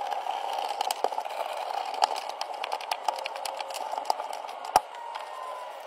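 Scattered light clicks and taps of a gloved hand handling the coupling on a PVC drain pipe, with one sharper knock near the end, over a steady hum.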